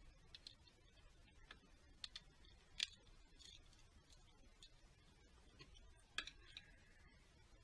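Faint, scattered metallic clicks and clinks of hand tools, a socket and wrench handled on top of the engine. Two sharper clinks come about three seconds in and again about six seconds in.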